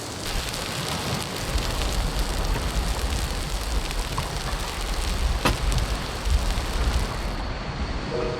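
Makchang (pork intestines) sizzling and crackling on a hot grill: a steady frying hiss with small pops, under a low rumble that sets in about a second and a half in and fades near the end.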